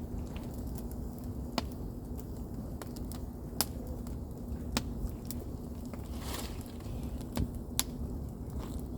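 Campfire of damp wood burning, with sharp irregular pops and crackles over a low steady rumble.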